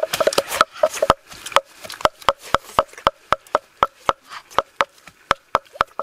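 Wooden pestle pounding red chilies in a wooden mortar: a run of short knocks, uneven at first and then steady at about four a second.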